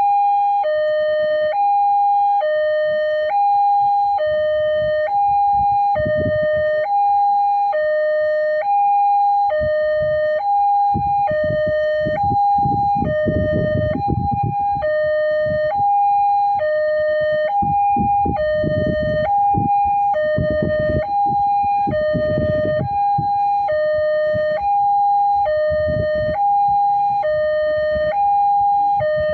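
Railroad crossing warning alarm sounding while the barrier is down, two electronic tones alternating high-low about once a second. A low rumble comes and goes beneath it.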